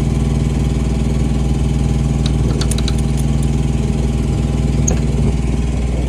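Westinghouse iGen4500 inverter generator running steadily. Keys jingle and click at the toolbox lock for about a second, a little over two seconds in.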